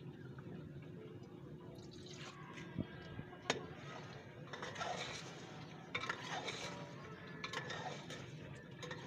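Metal spoon stirring chicken and spices in a pot over a wood fire: patches of hissy sizzling with a few sharp clinks of the spoon against the pot.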